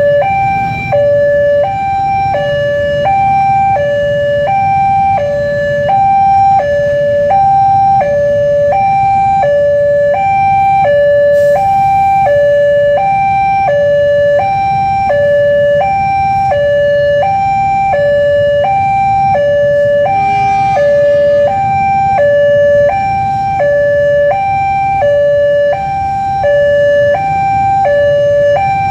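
Railway level-crossing alarm sounding its steady two-tone warning, a higher and a lower tone alternating about every 0.7 seconds, while the crossing is closed for a train. A low rumble of road traffic runs beneath, with a short rattle about twenty seconds in.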